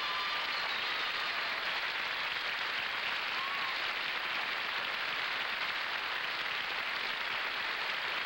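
A studio audience applauding steadily, with a faint whistle or two in the crowd.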